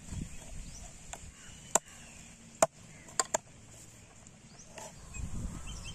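Four sharp plastic clicks, two of them close together, as an RX100 badge is pressed onto a Yamaha RX100 side cover by hand. Low handling rumble runs under them and swells near the end, with a faint bird chirp.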